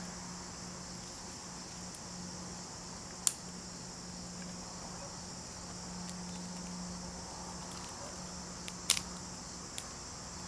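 Insects chirring steadily, over a low steady hum, with two sharp snaps about five and a half seconds apart from the small twig fire as it is fed and burns.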